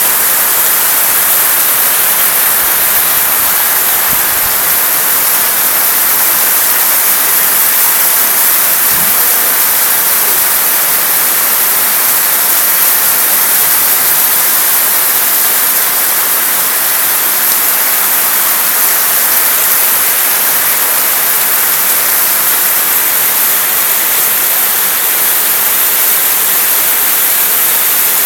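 Heavy downpour of rain: a steady, loud hiss that stays even throughout.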